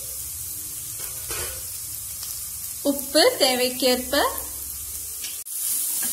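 Onions, green chillies and curry leaves sizzling steadily in a kadai. Near the end the sizzle gets louder as a wooden spatula stirs the spice powders into the mixture.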